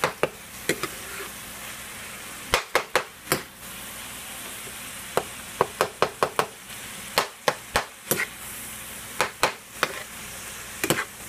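Ground meat sizzling as it browns in a frying pan. A utensil stirring it gives clusters of short sharp scrapes and taps against the pan every second or two.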